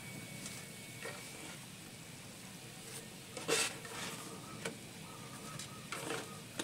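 Wingko coconut rice cakes sizzling steadily on a ridged grill pan, with a silicone spatula scraping and knocking against the pan a few times as the cakes are pushed and turned. The loudest scrape comes about halfway through.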